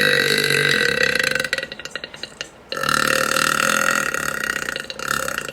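A woman's long, drawn-out belches. The first is already going at the start and breaks into a crackling rattle about a second and a half in. A second long belch starts near three seconds and runs almost to the end, with a short break near five seconds.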